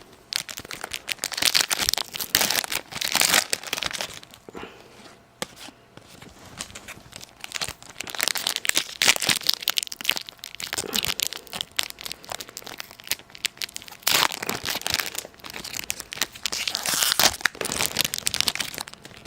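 Hockey card pack wrappers crinkling and tearing as packs are opened, in several bursts with quieter handling between.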